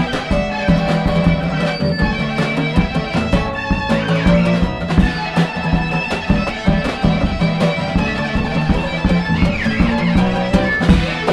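Instrumental band jam: electric violin playing sustained melodic lines over acoustic guitar and drums.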